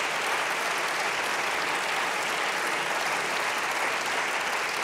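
Applause from a large seated audience of parliamentarians, steady dense clapping.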